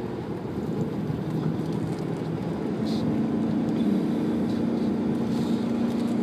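Car engine and road noise heard from inside the cabin of a car driving along a winding road. A steady engine drone comes in about three seconds in and holds, over a continuous low rumble.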